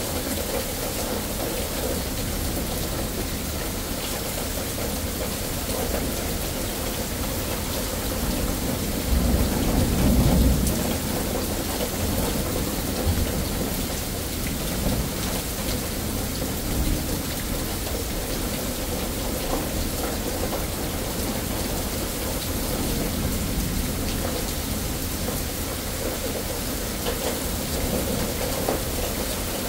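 Steady heavy rain pouring down on a yard and pavement. A low rumble of thunder swells up about nine seconds in and lasts a couple of seconds; a few fainter rumbles follow.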